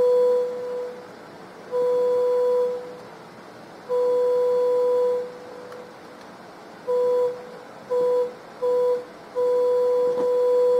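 A 500 Hz test tone reproduced through an amplifier from a solar cell lit by LEDs, cutting out and back in as a hand blocks and unblocks the light: two longer bursts, then three short ones, then the tone holds steady near the end.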